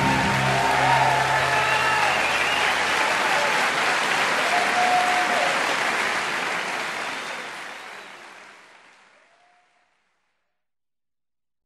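Audience applauding, with a few cheers, as the band's last chord dies away in the first couple of seconds. The applause fades out about eight to ten seconds in.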